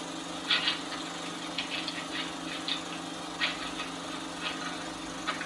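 16mm film projector running with a steady mechanical hum, with a few short sharp ticks and crackles coming through now and then.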